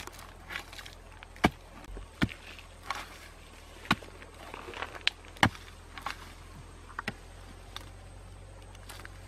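A bamboo pole jabbed and scraped into dry, hard soil while digging out a burrow: about eight sharp, irregularly spaced knocks with scraping and crumbling earth between them, going quiet near the end.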